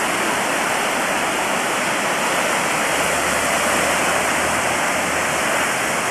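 Steady, even rush of ocean surf, with a faint low hum coming in about three seconds in.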